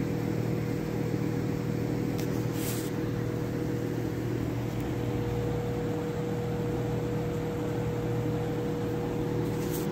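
Steady machine hum with one constant mid-pitched tone over a low drone, with a brief soft hiss about two and a half seconds in.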